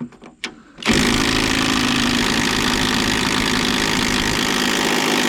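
Handheld power tool, most likely an impact wrench working the hood hinge bolts, running in one continuous burst of about five seconds. It starts sharply about a second in after a few light clicks.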